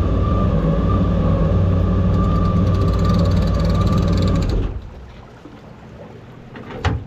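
Jet boat engine and jet pump running loudly and steadily, then stopping abruptly about four and a half seconds in, leaving a low background and a short knock near the end.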